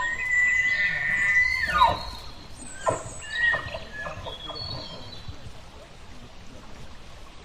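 An animal's high drawn-out call that rises, holds for about a second and a half, then falls, followed by a few shorter chirps and calls that die away.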